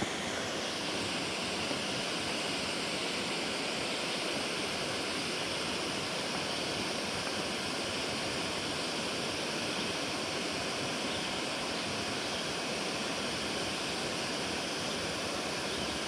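Steady rush of water pouring through a large dam spillway, an even, unbroken roar.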